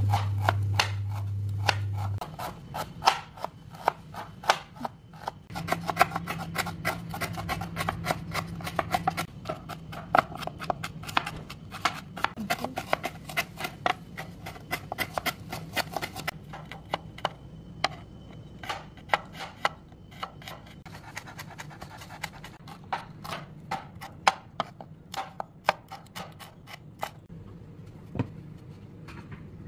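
Kitchen knife slicing torch ginger bud and shallots on a wooden cutting board: runs of quick, sharp taps of the blade striking the board, thinning out near the end. A low hum sounds for the first two seconds.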